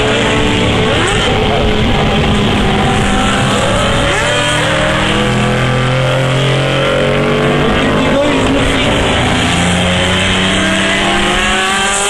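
Several GT race cars' engines running hard as they pass in turn, their overlapping notes rising and falling in pitch.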